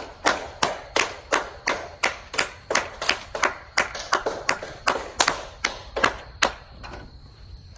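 A steady run of sharp claps, about three a second, stopping about a second before the end.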